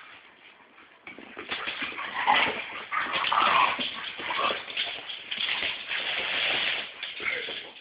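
Dogs playing tug of war with a toy, whining a few times in short bursts over scuffling and movement noise.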